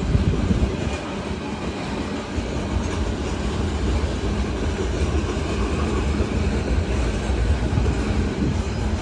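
Loaded grain train's freight cars rolling steadily past, with wheels rumbling and clacking over the rail joints.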